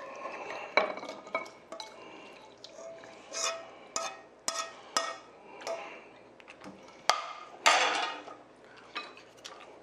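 Metal ladle clinking and scraping against a nonstick pan and a ceramic bowl as food is tipped from the pan into the bowl: a string of sharp clinks with short ringing, and a longer scrape near the end.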